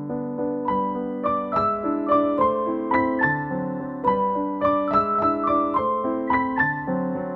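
Background music: a gentle piano or electric piano melody over held chords.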